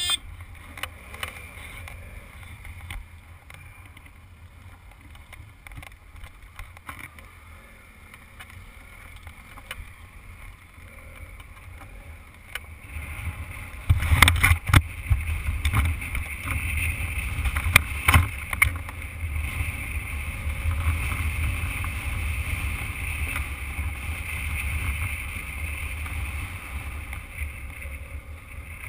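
Adventure motorcycle on a gravel road: a steady low engine and tyre rumble with a hiss on top. It is fairly quiet at first and grows clearly louder a little before halfway through as the bike gets under way, with a few sharp knocks from bumps and stones soon after.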